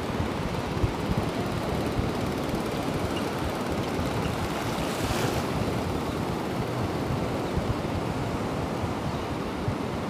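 Small waves washing in over a sandy shore, a steady surf hiss with a brief brighter rush about five seconds in. Wind buffets the microphone throughout.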